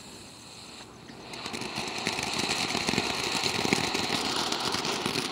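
Ground fountain firework spitting sparks, then about a second in erupting into a full spray: a steady, loud hiss with dense crackling.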